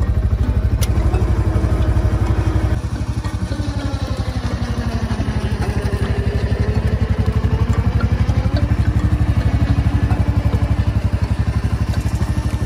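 Side-by-side UTV's engine running steadily with an even pulse while the vehicle drags a fallen log.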